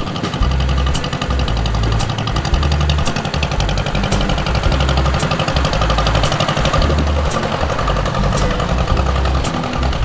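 John Deere MT's two-cylinder tractor engine running as the tractor drives along. A music track with a bass line and a beat about once a second plays underneath.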